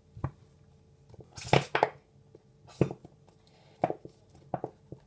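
Spoon knocking and scraping against a mixing bowl while stirring slime: about six scattered sharp clacks, the loudest cluster about a second and a half in.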